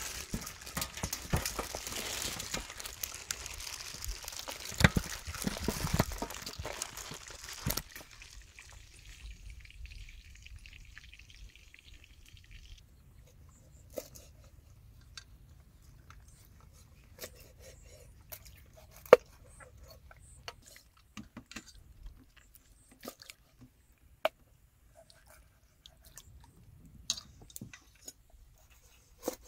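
Handling sounds of preparing fish and vegetables: a dense stretch of rustling with a few knocks for about the first eight seconds, fading out by about thirteen seconds, then scattered small clicks and crackles as an onion is peeled and greens are picked over.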